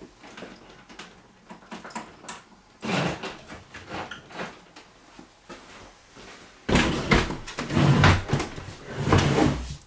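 Clicks, knocks and handling noise as a tower desktop computer case is unplugged, lifted and carried. There is a bump about three seconds in, and a louder stretch of bumping and rustling over the last three seconds.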